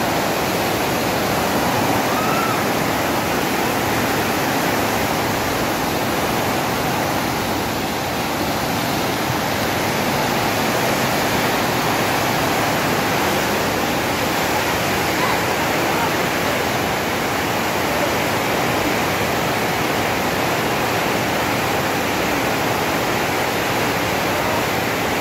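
Floodwater rushing down a swollen, muddy river in spate: a steady, loud rushing with no letup.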